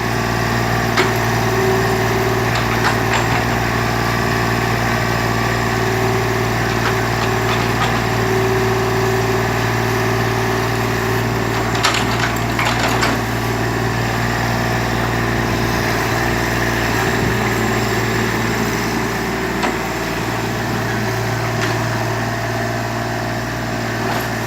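Excavator's diesel engine running steadily with a deep hum, its working tone rising and falling now and then. A few sharp cracks about halfway through.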